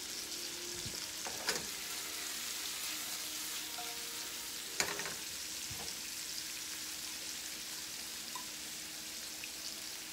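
Butter, garlic, sun-dried tomatoes and artichoke hearts sizzling steadily in two nonstick skillets. A couple of sharp metal clinks come about a second and a half in and again near five seconds.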